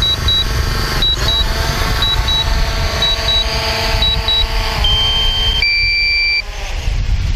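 DJI Mavic Pro quadcopter hovering low and landing: its propellers' steady whine drops in pitch about five seconds in and dies away as the motors stop, with wind rumbling on the microphone. Pairs of short high beeps sound about once a second until then, followed by a held tone and then a two-note tone as the motors shut off.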